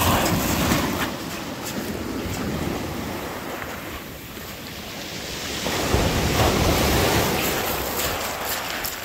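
Surf breaking and washing up a shingle beach at the water's edge, with a bigger wave surging in about six seconds in.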